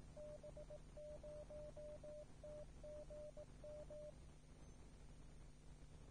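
Faint Morse code identification: one steady tone keyed in dots and dashes that spells out the amateur repeater callsign DB0TGM. It stops about four seconds in, leaving a low steady hum.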